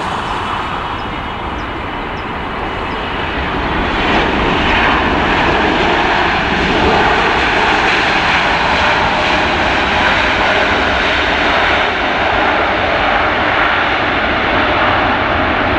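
Heavy wide-body jet airliner's engines, a loud, dense jet noise that swells about four seconds in and then holds steady as the aircraft passes.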